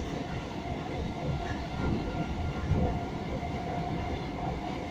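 Class 313 electric multiple unit running, heard from inside the carriage: a steady rumble of wheels on the track with a faint steady whine.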